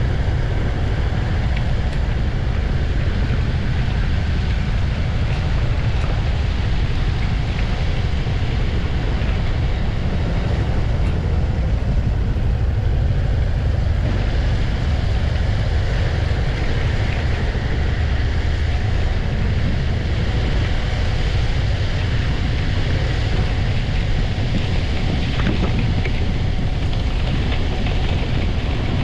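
Wind buffeting a windscreen-mounted camera on a moving BMW C 400 X scooter, with the scooter's engine running underneath. The sound is steady throughout, heaviest in the low rumble.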